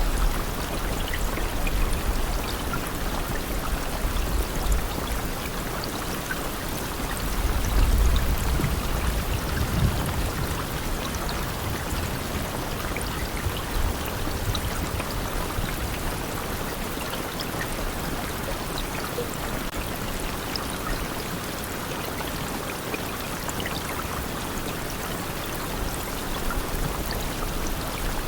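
Steady rain falling, an even hiss with scattered drops pattering and a low rumble that swells briefly about eight to ten seconds in.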